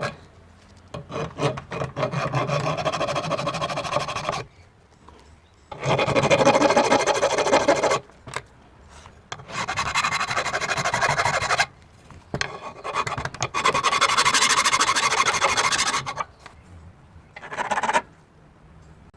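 Hand file rasping across the metal of a lathe's headstock mounting surface, in about five runs of strokes with short pauses between them. The filing takes off burrs and eases the front edge so the headstock doesn't sit high.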